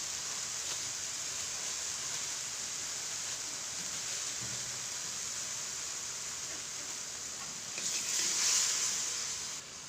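Spice paste with a little water and sugar sizzling steadily in a frying pan, louder for a moment near the end.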